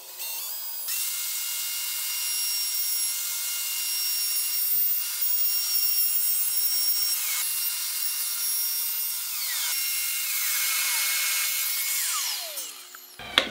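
Plunge router with a circle-cutting jig cutting a disc out of 10 mm plywood, its motor running with a steady high whine. Near the end the motor spins down with a falling whine.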